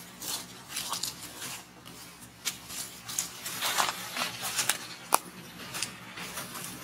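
Dry leaf litter rustling and crackling in short irregular bursts as the macaques shift about, with one sharp click about five seconds in.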